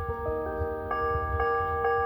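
Church bells struck in quick succession, several notes ringing on and overlapping as new strikes come in.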